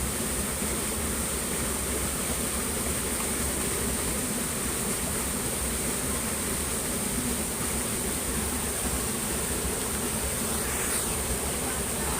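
Steady high-pitched chorus of night insects over a constant rush of flowing water.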